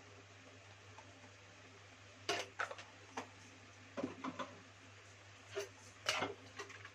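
Metal kitchenware clinking and knocking against a metal pressure cooker: a string of sharp clinks in small clusters starting about two seconds in, over a low steady hum.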